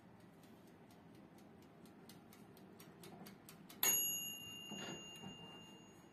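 Mechanical timer of a Gemini electric toaster oven ticking rapidly and evenly, then its bell rings once a little under four seconds in, the ring dying away over about two seconds: the timer has run out.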